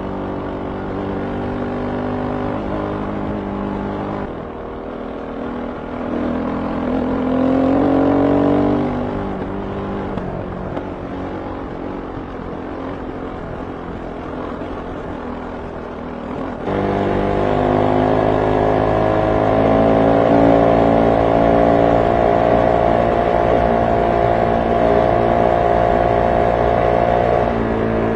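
Kove 450 Rally's single-cylinder 450 cc engine running hard at speed on a gravel road, heard from on the bike. The engine note climbs in pitch under acceleration about a quarter of the way in, and it is louder and steady from about two-thirds of the way in.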